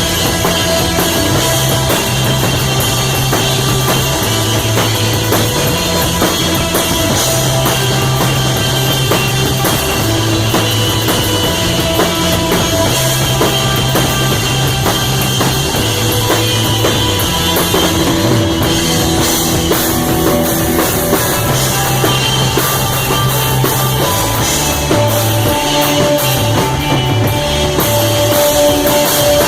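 A rock band playing live: a drum kit with busy cymbals, a bass line stepping between low notes, and electric guitar, all loud and steady with no singing.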